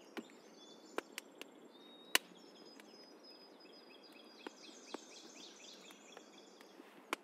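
Small campfire crackling with scattered sharp pops, the loudest about two seconds in, under faint birdsong: a thin whistled note and then a run of quick repeated high notes.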